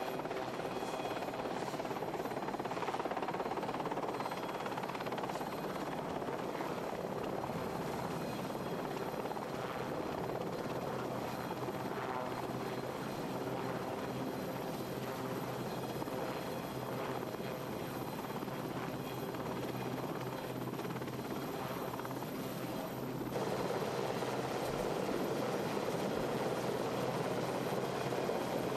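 Westland Sea King search-and-rescue helicopter running, its turbine engines and rotor making a steady, dense noise. About 23 seconds in the noise changes abruptly and grows slightly louder and fuller.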